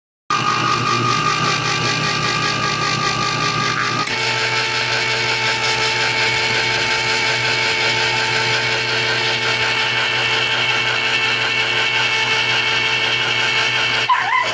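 A small electric motor running steadily, starting abruptly; its tone changes about four seconds in.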